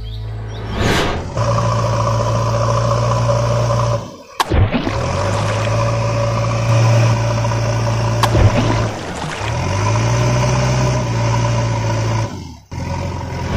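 Heavy vehicle engine running with a steady low drone. This is an added engine sound effect rather than anything the toys make. It drops out briefly about four seconds in and again near the end, with a sharp click near eight seconds.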